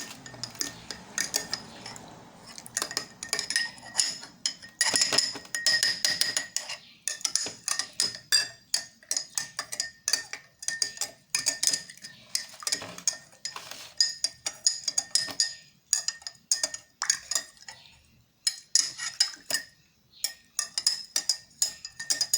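A metal spoon stirring turmeric powder into ginger water in a cup, clinking rapidly and repeatedly against the sides, with the cup ringing after each strike. The stirring pauses briefly a few times.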